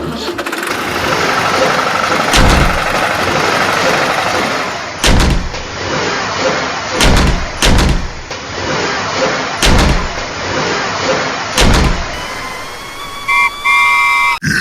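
A small motor-driven machine runs steadily with a noisy hum, broken by six heavy thumps about every two seconds. Short pitched tones sound near the end.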